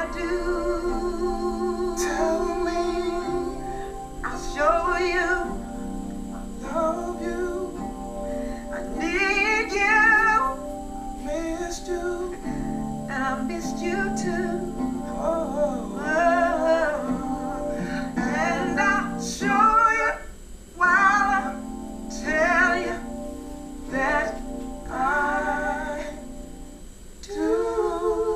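A man and a woman singing a soul ballad duet over sustained electronic keyboard chords. The voices move in long ornamented runs with vibrato, breaking off in short pauses between phrases.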